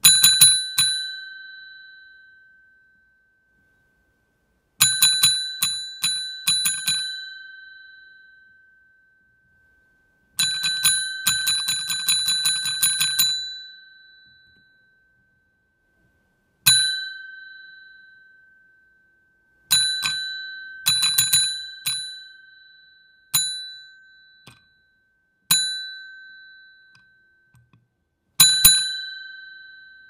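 Desk call bell rung by pressing its plunger, in quick runs of dings and in single dings, each ringing out with one clear tone that fades over a second or two. The fastest run, a dozen or more rapid strikes, comes a little before the middle.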